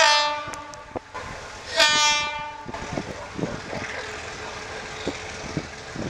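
ALCO RSD-16 diesel locomotive sounding its horn in two blasts, one at the start and a second about two seconds in, each under a second long. After them comes the steady noise of the approaching train, with scattered clicks.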